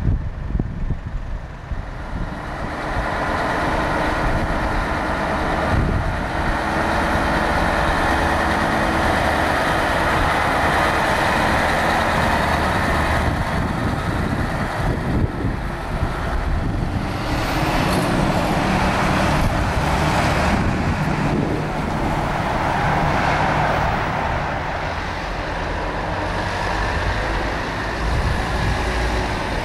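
Diesel heavy trucks, a Scania 3-series and a Volvo FH, running and driving slowly past across a terminal yard, with a steady engine hum and drivetrain noise.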